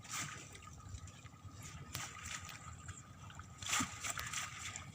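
Water sloshing with scattered small splashes, and a louder splash about four seconds in.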